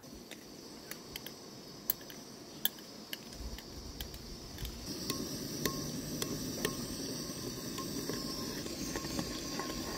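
Metal spoon clinking and scraping against a ceramic bowl while stirring a thick sauce, in short irregular ticks.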